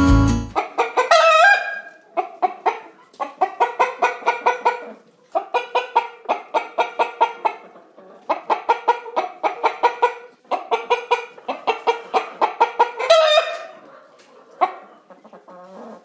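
Chickens clucking in quick runs of short calls, about four or five a second, broken by brief pauses, with a longer squawk that rises and falls near the start and another near the end.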